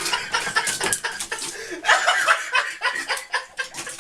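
People laughing in fits and bursts.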